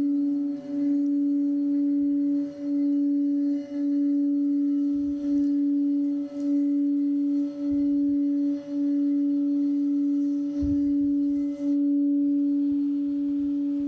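Frosted quartz crystal singing bowl tuned to D, played by rubbing a suede-covered mallet around its rim: one low, steady sung note that swells and dips every second or two. Near the end the rubbing stops and the note rings on, slowly fading.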